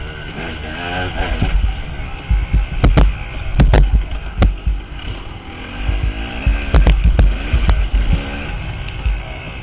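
KTM dirt bike engine revving up and falling off as the rider shifts and throttles, with heavy wind buffeting on the onboard microphone. Several sharp knocks cut through it.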